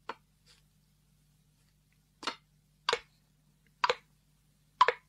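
Cartoon footstep sound effect on stone steps: a small click, then four sharp knocks about a second apart, each louder than the last.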